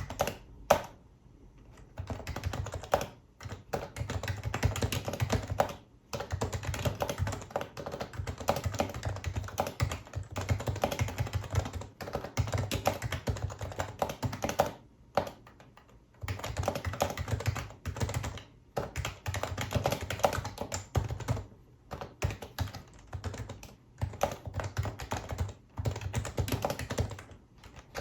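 Typing on a Happy Hacking Keyboard Professional HYBRID Type-S with electrostatic capacitive (Topre) key switches: runs of fast keystrokes broken by short pauses, with one sharper single keystroke about a second in.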